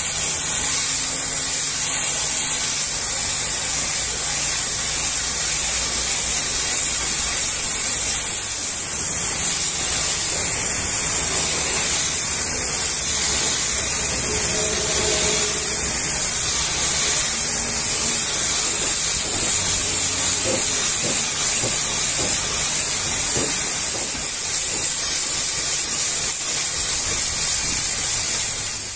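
High-pressure washer jet spraying water against the side of a tanker trailer's tank: a steady, loud hiss that holds unbroken throughout.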